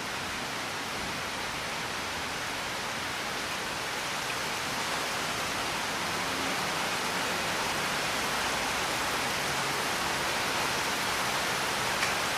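Steady rain: an even, unbroken hiss of falling rain, with a single faint drop-like tick near the end.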